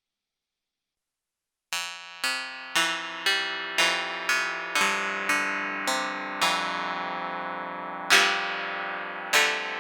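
Silence, then from a couple of seconds in a digital synthesizer plays a line of struck, bell-like electric-piano notes, about two a second, each fading quickly, with one longer held note before a louder note near the end.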